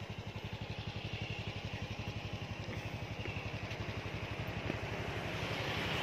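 Small motorcycle engine running with a fast, even putter while the bike is ridden, growing a little louder near the end.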